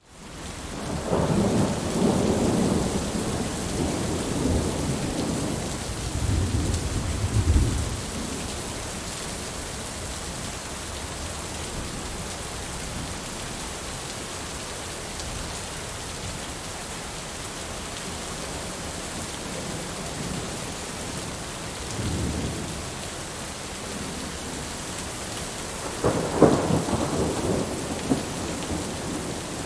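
Thunderstorm: steady rain with rolling thunder. A long rumble rolls through the first eight seconds, a short low rumble comes a little past the middle, and a sharper clap rolls on near the end.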